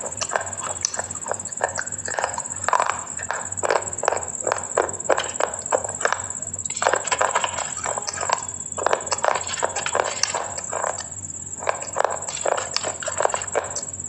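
Close-miked chewing of something hard and crunchy: quick, rapid crunches several times a second, with brief pauses about six and a half and eleven seconds in.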